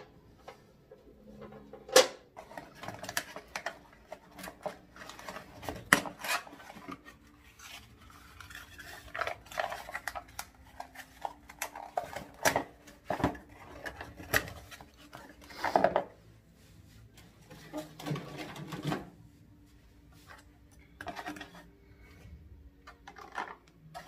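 Cardboard packaging inserts being pulled and shifted inside a box: rustling and scraping with irregular sharp knocks and clatters, the loudest about two and six seconds in.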